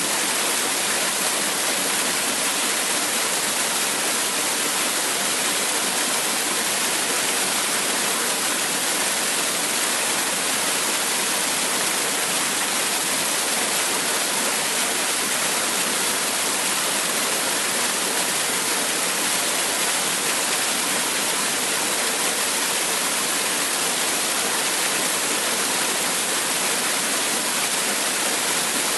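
Waterfall: falling water rushing steadily, a dense even hiss with no breaks or changes.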